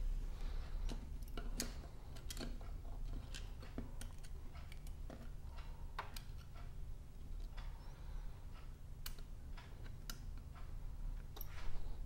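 Light, irregular clicks and ticks, about a dozen, from a small precision screwdriver and fingertips working on the opened Sonoff NSPanel Pro's circuit board and plastic housing. The loudest click comes near the end.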